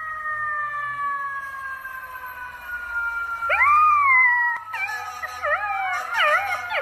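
Dogs howling: a long, slowly falling tone, then from about three and a half seconds in, rising-and-falling howls, with several voices overlapping near the end.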